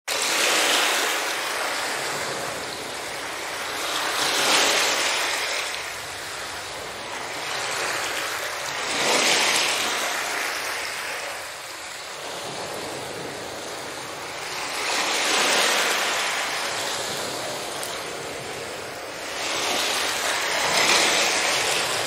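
Ocean surf washing in, swelling and fading about five times, every four to six seconds.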